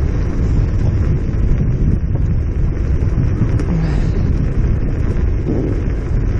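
Wind buffeting a head-mounted action camera's microphone, a steady low rumble that flickers in level, during a ride on a Kugoo M4 electric scooter at about 30 km/h.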